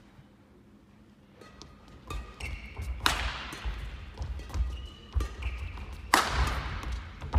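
Badminton rally: two loud sharp racket strikes on the shuttlecock, about three seconds apart, with footsteps thudding and shoes squeaking on the court mat in between.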